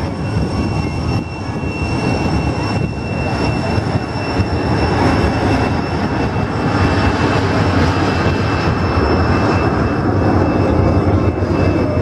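DC-10 air tanker's three turbofan engines: a steady high jet whine over a loud rumble, growing louder from a few seconds in as the jet flies in low toward the listener.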